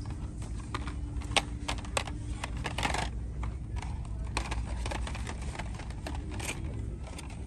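Plastic blister-pack toy car cards clicking and clattering against each other and the metal peg hooks as a hand flips through them: irregular sharp clicks, the loudest about a second and a half in, over a steady low background hum.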